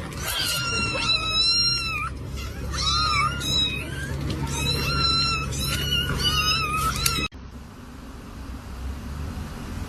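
A cat meowing repeatedly, five or six high-pitched, drawn-out meows that bend in pitch. It cuts off abruptly about seven seconds in, leaving a steady hiss.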